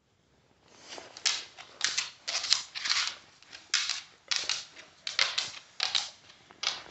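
Scratchy rustling of a hand rubbing and scratching a cat's fur right next to the microphone, in about a dozen short, uneven strokes.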